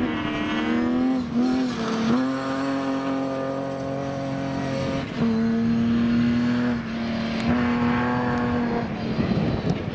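BMW E36 3 Series rally car's engine running hard at high revs on a gravel stage. Its note is held high and steady, dipping briefly about a second and a half in, at about five seconds and near seven seconds.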